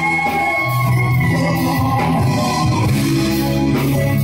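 Live band music: electric guitar and keyboard over bass and drums, playing a steady rock-ballad accompaniment.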